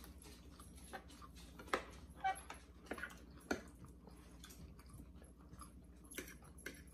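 Eating at a table: metal forks clicking and scraping against plates in several separate sharp ticks, with faint chewing.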